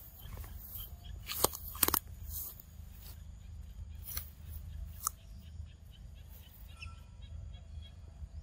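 Dry twigs and branches cracking sharply a few times in the first five seconds, with light rustling and a steady low rumble underneath.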